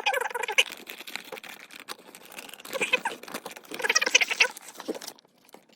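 Sped-up footage of a Lego minifigure blind bag being handled and opened: quick crinkling and crackling of the plastic packet, with short squeaky snatches of fast-forwarded voice. It fades out near the end.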